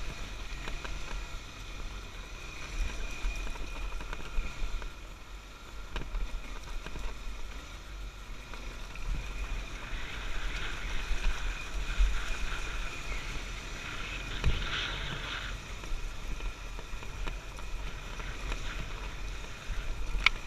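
A Honda XR250 Tornado's single-cylinder four-stroke engine running as the dirt bike rides over a rough, rocky track, with a couple of sharp knocks and a louder stretch about halfway through.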